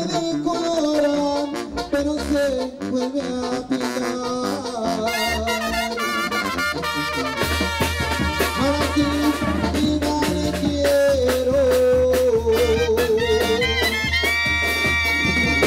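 Banda brass ensemble playing live. Trumpets and trombones carry the melody over steady percussion, and a low bass line comes in about halfway through.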